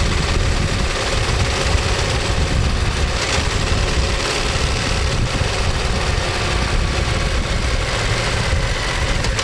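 Ducati Monster 1200S's L-twin engine and exhaust running at a steady, even note.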